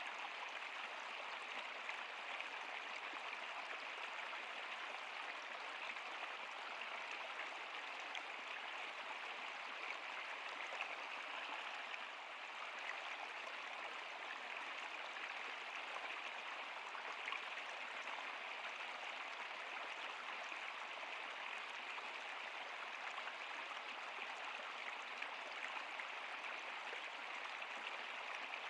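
Water flowing in a stream: a steady, even rush with fine splashing.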